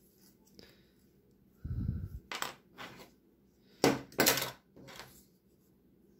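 Hard plastic GraviTrax bridge pieces being handled and snapped together by hand: a dull low knock about one and a half seconds in, then a handful of sharp plastic clicks, the loudest a pair about four seconds in.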